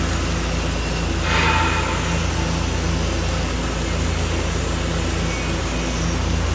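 A machine running with a steady low hum, with a brief hiss about a second in.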